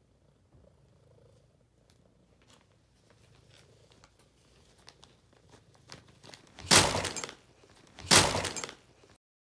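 Plastic popcorn bag crinkling as a cat paws into it: faint crackles at first, then two loud crinkling rustles about a second and a half apart near the end.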